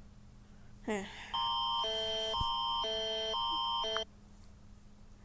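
Electronic alert tone: a steady high beep under two chords that alternate about every half second for nearly three seconds, then cuts off suddenly. A brief voice sound comes just before it.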